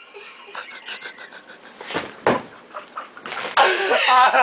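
A person forcing out wheezy, breathy gasps and pants; loud laughter breaks out about three and a half seconds in.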